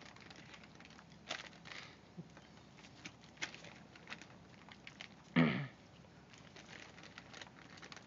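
White ibises pecking stale popcorn off bare dirt: a scatter of quick clicks and crackles from their bills, like ducks feeding. About five seconds in, one louder short, low sound that drops in pitch.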